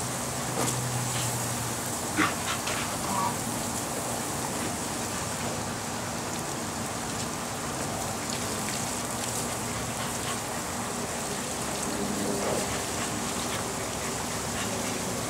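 Steady hiss of water spraying from a hose-fed sprinkler toy and falling on the pool water and grass, with a few brief sharp sounds about two seconds in.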